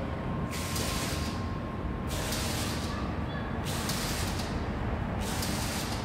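Illuminated falling-water curtain pouring into the dock in repeated surges, a hissing rush that starts again about every one and a half seconds over a steady low city rumble.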